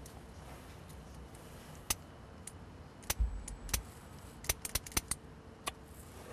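A string of about a dozen sharp, irregular clicks, starting about two seconds in and stopping shortly before the end, over a low steady background hum.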